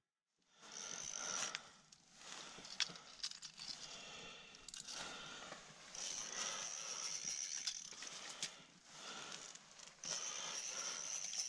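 Faint rustling and light clicks from hands working a spinning reel and ice-fishing rod, with intermittent stretches of hiss.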